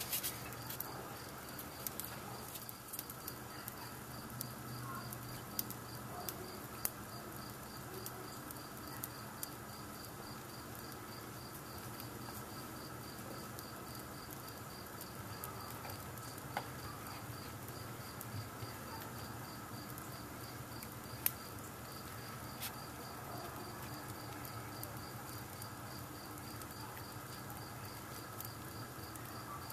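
A cricket chirping steadily in an even, high-pitched pulse, with scattered small crackles and pops from a fire burning a small effigy in a fireplace; one sharper pop about two-thirds of the way through.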